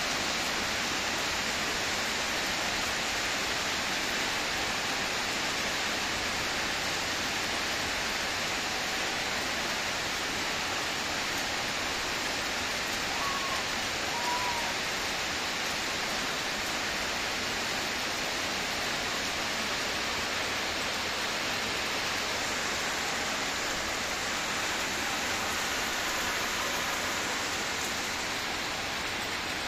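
Steady rain falling, an even hiss of rain on roofs and waterlogged ground.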